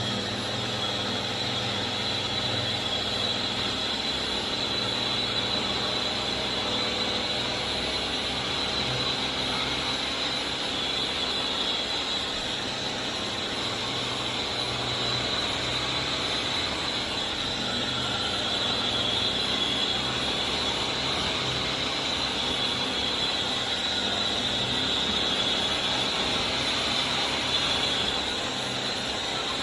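Vax Air Steerable Max upright vacuum cleaner running steadily, its motor giving a high, constant whine over the rush of air.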